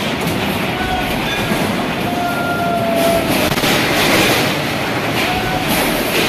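Steady roar of a flood-swollen river, with the rumble of a four-storey concrete building collapsing about three seconds in.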